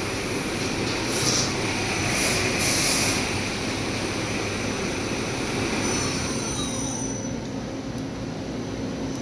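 Daewoo Puma CNC lathe turning metal: the spindle runs steadily while the tool cuts with a high metallic squeal and hiss, with a few short hissing bursts in the first three seconds. The high squeal dies away about seven seconds in, leaving the machine's lower running noise.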